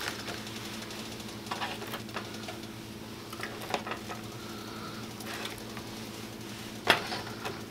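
Filleted chicken breasts being dropped by hand into a pot of broth, giving scattered soft splashes and plops, the sharpest about seven seconds in, over a low steady hum.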